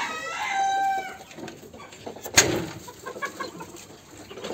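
A chicken's single drawn-out call, about a second long, followed about two seconds in by a sharp knock.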